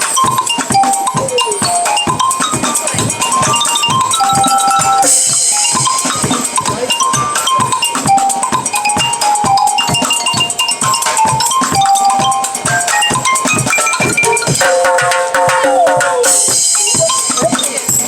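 Live band playing upbeat music: a steady, driving drum beat with quick, short melody notes over it.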